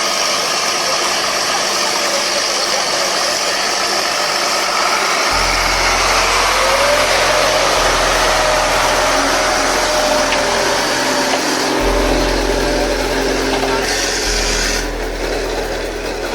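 Heavy engine running with a steady noisy wash and some faint voices. A deep low rumble comes in abruptly about five seconds in. The sound changes suddenly a few more times, as at cuts between clips.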